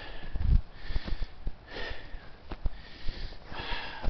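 A hiker's heavy breathing while climbing, breaths coming about every second and a half to two seconds, with thuds of footsteps on dry dirt and grass.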